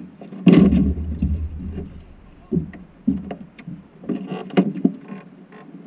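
Water slapping and sloshing against a small boat's hull right beside the camera, in irregular splashes, the loudest about half a second in, with a low rumble under it for a second or so.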